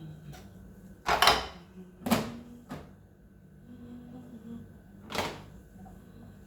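Three sharp knocks and clatters, about a second in, two seconds in and five seconds in, with a lighter click between, as things are handled and set down during the fridge cleaning. A low steady hum runs underneath.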